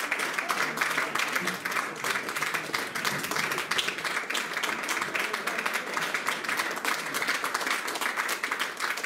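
Audience applauding: dense, steady clapping throughout.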